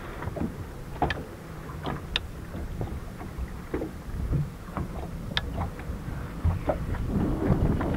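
Water lapping and slapping against the hull of a Skeeter bass boat, with scattered small knocks and clicks and a low wind rumble on the microphone.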